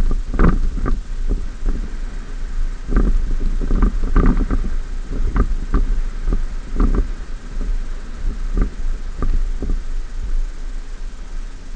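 2014 Ford F-150 XLT pickup driving over a rough sand track: a steady low rumble with irregular knocks and thumps as it rides over bumps, fewer of them toward the end.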